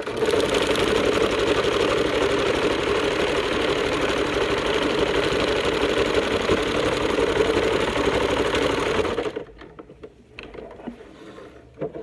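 Electric sewing machine running steadily at a fast, even stitch rate while sewing a zigzag seam along a fabric edge, then stopping abruptly about nine seconds in.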